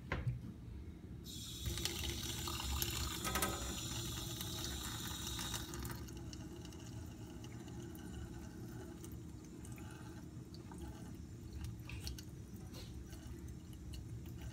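Tap water running into a stainless steel sink and splashing over a glass microscope slide held under the stream, rinsing off the last stain of a Gram stain (safranin). The splashing comes on suddenly about a second in, is loudest for the next few seconds, then goes on more softly.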